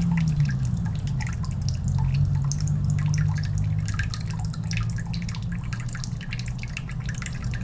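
Water dripping in many small, irregular drops over a low, steady hum.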